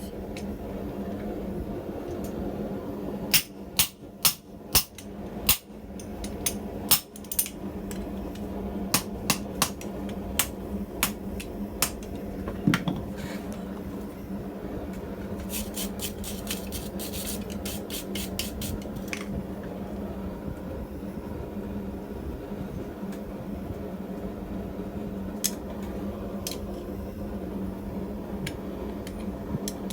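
Hammer blows on hot steel at the anvil: irregular strikes for most of the first twenty seconds, including a quick run of blows, then only a couple of occasional taps, all over a steady low hum.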